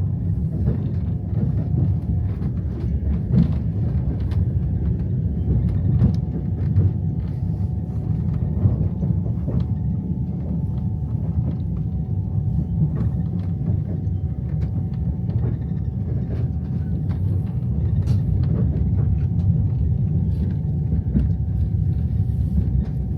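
Passenger train carriage running along the rails with a steady low rumble, faint scattered clicks and a faint steady tone above it.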